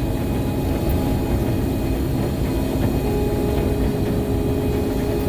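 Combine harvester running steadily while cutting soybeans: a dense low rumble with a few steady hum tones, one more hum coming in about three seconds in.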